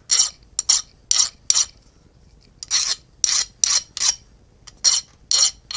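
Hand file deburring the hacksaw-cut edges of small steel flat-bar plates. Short scraping file strokes, about two or three a second, with a brief pause about two seconds in.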